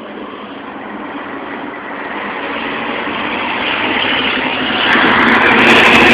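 Scania 113H truck's diesel engine running loud, growing steadily louder with a further jump about five seconds in.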